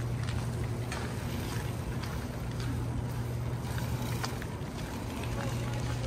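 Snowstorm city-street ambience: a steady low hum under a wash of noise, with scattered soft footsteps on the wet, slushy sidewalk.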